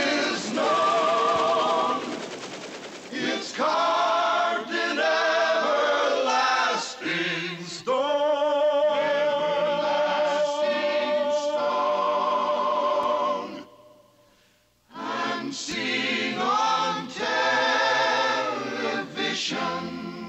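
A choir singing a tribute song with instrumental accompaniment, the voices held with vibrato. The music breaks off for about a second roughly two-thirds of the way through, then the choir comes back in.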